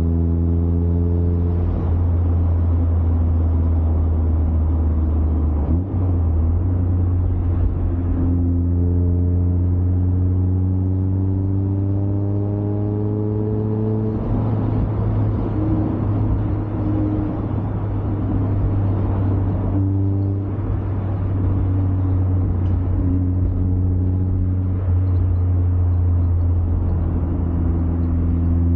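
Mazda MX-5's four-cylinder engine and road noise heard from inside the cabin with the windows up, under way on an open road. The engine note climbs slowly as the car accelerates in gear and breaks off several times, over a constant low rumble of tyres on the road.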